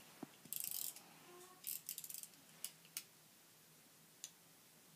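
Small plastic toy being handled: a brief rustle, then a scatter of faint clicks and rattles.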